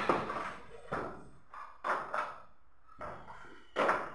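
Laminated wooden cabinet panels knocking and clattering as they are handled and set down on a hard floor: a few sharp knocks roughly a second apart, the loudest near the end.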